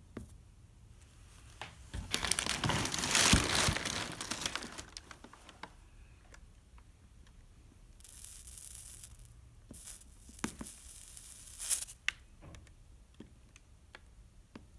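Soldering iron melting wire solder onto the lead seams of a stained glass lampshade, the flux sizzling and crackling. A long loud spell comes about two seconds in, then two shorter, fainter spells later on.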